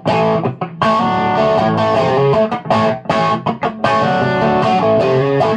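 Electric guitar played through the Ceriatone One perCentaur overdrive pedal into a Ceriatone amp head: chords and quick picked notes. A steady low hum runs underneath, which the player puts down to a ground loop.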